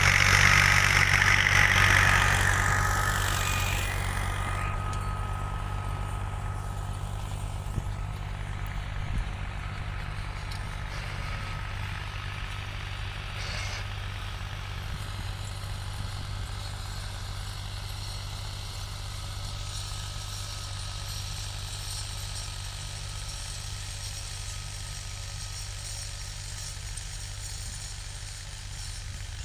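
Diesel farm tractor engine working under load with a rotavator churning soil, loud at first as it passes close, then fading over the first few seconds to a steady distant engine hum.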